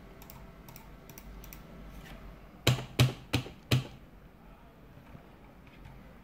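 Keys pressed on a computer keyboard: a few light clicks, then four loud key strikes about a third of a second apart around the middle.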